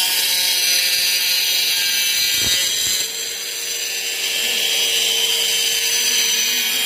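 Electric power tool cutting masonry, running steadily with a loud, high grinding hiss; it eases off briefly about three seconds in, then runs on.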